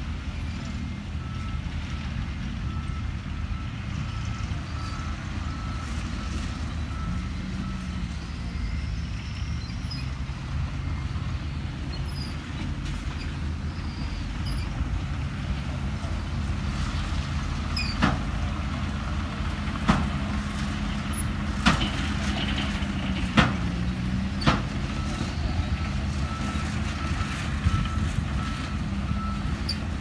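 Heavy diesel engines of dump trucks and a Komatsu bulldozer running steadily. A reversing alarm beeps rapidly during the first third and again near the end, and several sharp knocks sound a little past the middle.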